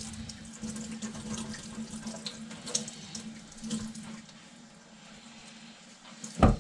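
Kitchen faucet running water into a bowl of batter mix to thin it, with small clinks; the flow is quieter after about four seconds, and a sharp knock comes near the end.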